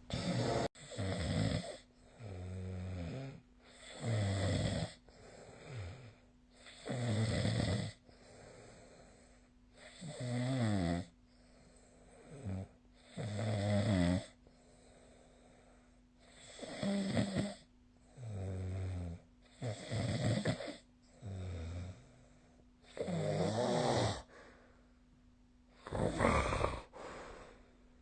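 A sleeping person snoring vigorously: a rough, buzzing snore every two to three seconds, each lasting about a second, over a faint steady hum.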